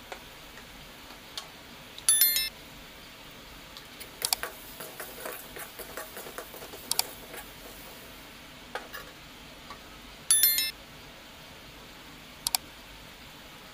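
A slotted metal spatula scraping and tapping an aluminium kadai as tomato masala is stirred, over a faint steady sizzle of oil. Twice a short bright electronic chime rings out, about two seconds in and again about ten seconds in, with scattered sharp clicks between.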